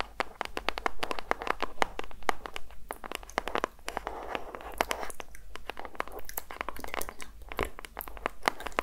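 Long fingernails tapping quickly on a small cardboard box: a dense, irregular run of crisp clicks, several a second.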